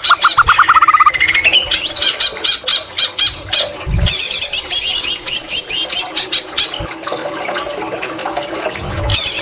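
White-rumped shama singing a varied song filled with greater green leafbird mimicry: a quick run of repeated notes, then rising whistles, then fast trills of high notes, with the trills returning near the end.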